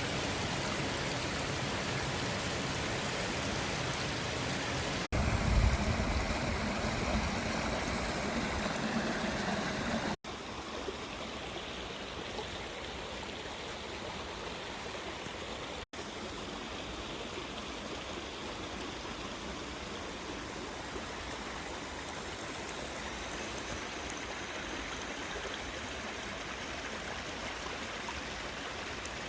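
Small waterfall rushing steadily. The sound is cut abruptly three times. Between about five and ten seconds in it is louder, with a deeper rumble.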